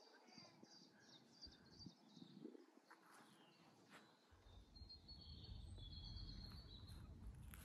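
Faint outdoor ambience with small birds chirping: a quick run of short high notes in the first second or so and a trill about two-thirds of the way in. A low rumble comes in about halfway.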